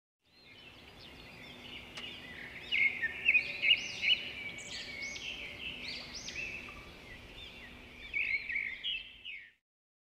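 A group of birds chirping, many short rising and falling calls overlapping over a faint background, with louder bursts of chirps around the middle and near the end. The sound fades in and then cuts off suddenly near the end.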